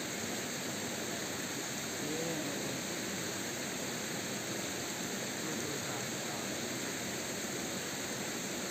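Steady rush of flowing stream water, even and unbroken, with faint voices about two seconds in.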